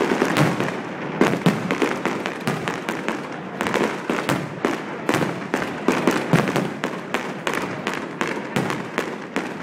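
Aerial firework shells bursting in quick succession: a dense, unbroken run of bangs and crackles, several a second.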